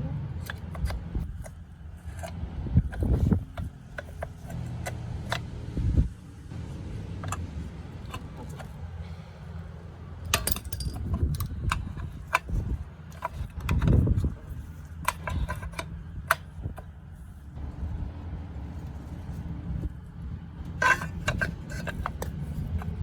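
Metal tools clinking, scraping and knocking against a dirt bike's parts in scattered irregular strikes while a stuck part is worked at, over a steady low hum.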